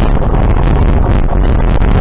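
Loud, steady rumble of wind buffeting the microphone mixed with vehicle running noise, as heard from a moving vehicle.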